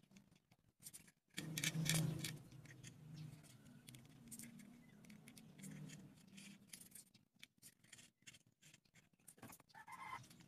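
Hands handling a small popsicle-stick and bamboo-skewer craft boat: scattered clicks, scrapes and rustles of wood against wood and cardboard, loudest about one and a half to two seconds in.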